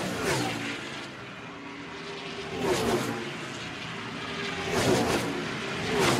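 NASCAR stock cars racing past one after another, each engine's pitch dropping as it goes by, about every two to three seconds, over a steady background of crowd and track noise.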